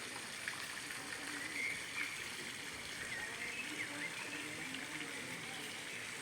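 Running water, a steady even rush and trickle, with faint chirps and faint distant voices.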